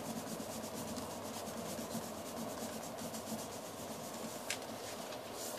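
Fingers rubbing and stroking the paper of a paper airplane's wing in quick, steady strokes, working a curve into it. A short click about four and a half seconds in.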